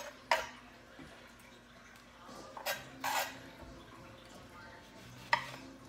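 A kitchen knife cutting navel oranges on a wooden cutting board: four sharp knocks of the blade against the board, two of them close together midway, with quieter handling between.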